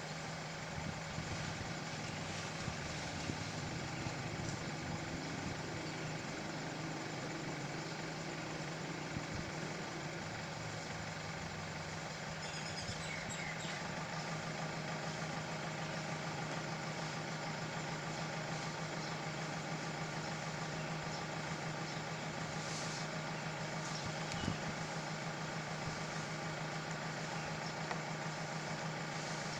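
Steady low mechanical hum, like an engine idling, running evenly without a break.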